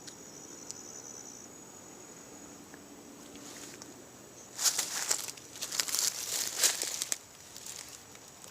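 Insects trilling steadily and high-pitched, then, a little past the middle, a loud crackling rustle lasting about two and a half seconds.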